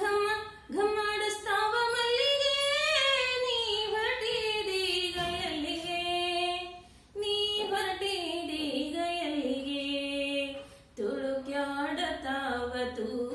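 A woman singing a Kannada bhavageete (light poetic song) unaccompanied, holding long, ornamented notes and pausing briefly for breath a few times.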